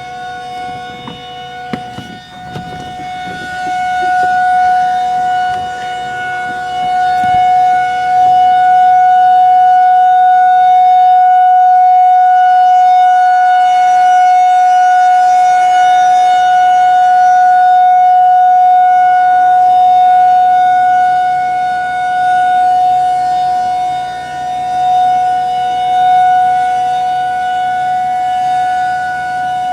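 Rotating outdoor tornado warning siren sounding one steady tone during its routine monthly test. It climbs in loudness over the first few seconds, then swells and fades slowly as the spinning horn sweeps toward and away.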